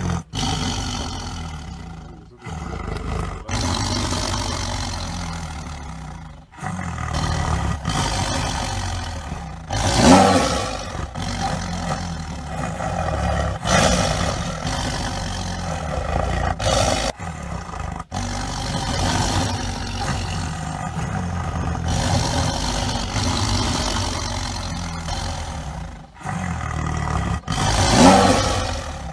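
Tiger roaring: a series of long, deep roars with brief breaks between them, loudest about ten seconds in and again near the end.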